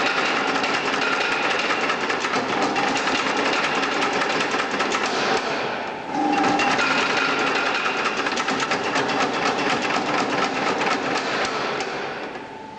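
Power hammer running, its ram pounding rapidly and continuously on a workpiece held in tongs on the bottom die, over a steady machine hum. It breaks off briefly about halfway through, then resumes and dies away near the end.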